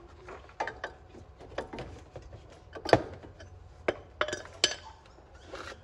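Sharp metal clinks and knocks from a hammer and hand tools against a car's disc brake caliper and bracket, about eight in all, the loudest about three seconds in.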